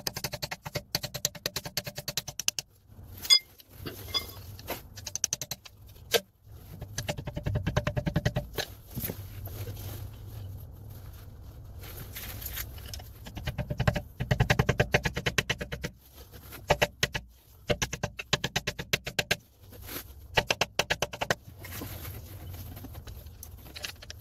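Screwdriver scraping and picking at the circlip on a rear lower ball joint, metal on metal: bursts of rapid scratchy clicks with short pauses between them.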